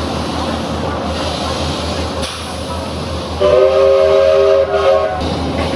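Steam locomotive 1089, a Queensland Rail BB18¼ class, sounding its whistle for just under two seconds about midway, several steady notes at once. Under it runs the train's steady running noise with a regular low beat, heard from an open carriage window.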